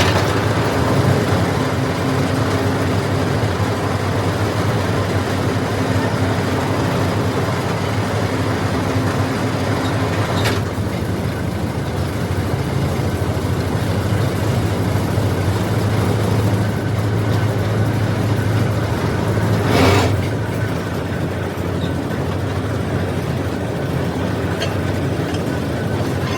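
Borewell drilling rig running steadily with a loud, low engine hum and a broad machine noise over it. A brief sharp burst comes about twenty seconds in.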